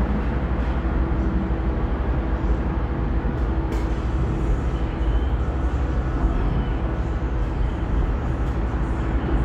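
Long Island Rail Road M3 electric multiple-unit train running, a steady rumble with a faint steady hum over it.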